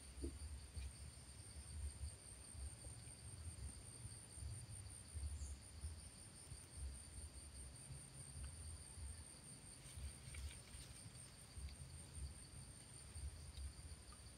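Steady high-pitched chirring of insects, with a low, uneven rumble on the microphone underneath.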